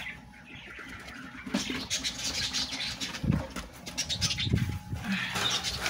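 Rustling and handling noise with scattered small clicks and a couple of dull bumps, as baby Angora rabbits are picked up and set into a clay pot.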